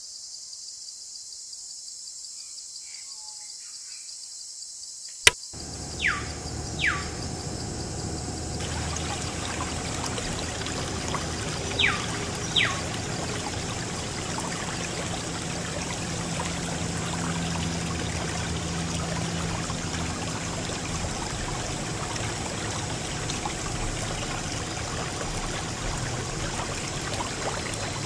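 Water pouring and splashing from a small DIY water pump, starting with a click about five seconds in and running steadily after. A few short whistles fall quickly in pitch, twice close together near the start and twice more a little later.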